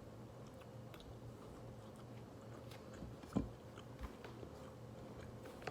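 Faint chewing of a bite of MRE maple nut cake, a little stale, with a soft knock about three and a half seconds in, over a low steady hum.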